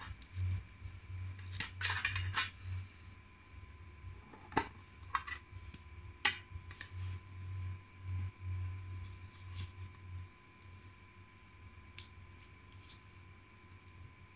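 Small metal tins and a metal tag being handled: light clinks and taps of metal on metal, with some rustling about two seconds in and the sharpest clink about six seconds in.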